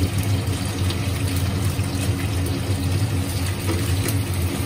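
Steady hum of a kitchen range hood fan running over a gas hob, with crucian carp sizzling in oil in a wok and faint ticks and crackles.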